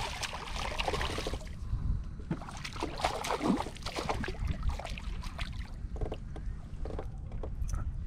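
A hooked fish splashing and thrashing at the surface beside a kayak as it is brought in and grabbed by hand. There are two bouts of splashing, one right at the start and one about three seconds in, then a few small knocks of handling.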